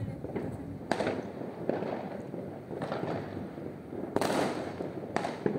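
Many fireworks going off at once: a steady crackle of overlapping bursts with sharper bangs every second or so, the loudest about four seconds in, followed by a short rumbling tail.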